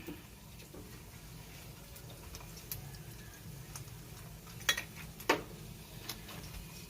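Quiet cooking at a cast iron skillet: a handful of short, sharp clicks and ticks, the loudest two about halfway through, over a low steady hum.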